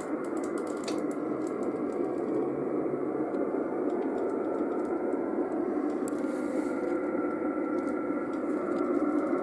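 Steady hiss and static of band noise from an 11-metre (CB) band radio receiver's speaker, cut off above the voice range by the receiver's filter, with faint steady tones of distant signals in it.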